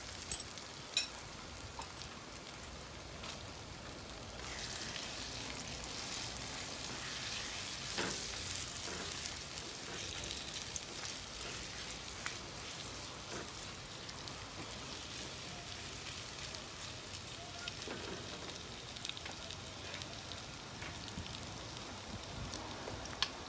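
Marinated chicken pieces sizzling in peanut oil in a hot nonstick wok: a steady frying hiss that grows louder for a few seconds as the pieces are moved around with a spatula. There are a couple of light utensil clicks near the start.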